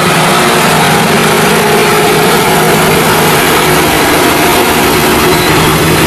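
Heavy tanker truck's diesel engine running steadily as the truck drives slowly through deep mud close by, its hum growing a little stronger in the second half.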